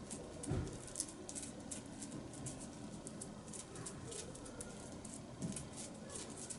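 Dog's claws clicking irregularly on a hard floor as it walks round in circles, the pacing typical of canine dementia, with a soft thump about half a second in.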